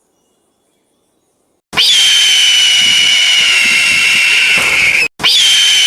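A bird's long, harsh, high-pitched screech, falling slightly in pitch, starting a little under two seconds in; it breaks off briefly and a second screech starts near the end.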